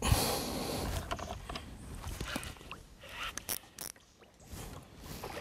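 Fishing reel working against a hooked tarpon that is fighting hard: the reel's gears and drag ratchet click irregularly. A sudden burst of noise opens the sound.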